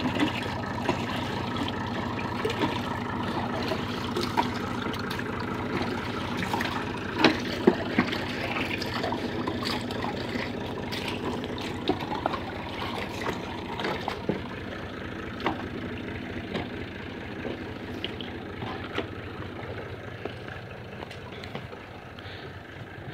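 Tractor engine running steadily to drive a tubewell pump, with water gushing from the pump's outlet pipe. The sound fades slowly toward the end.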